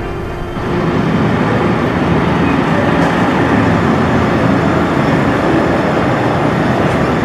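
Steady, loud roar of street traffic, stepping up about half a second in.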